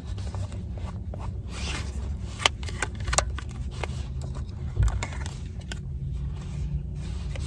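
Tarot cards being handled and drawn from the deck: irregular small snaps and clicks of card against card, with short scraping rustles, over a low steady hum.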